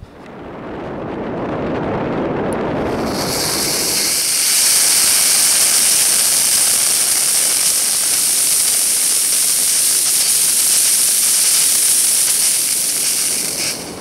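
Sugar-propellant end-burner rocket motor burning on a thrust-test stand, a steady hissing rush of exhaust through its rockite-and-steel nozzle. It builds over the first few seconds, holds evenly, and drops off sharply near the end. It is a low-thrust, long burn of about two pounds of thrust.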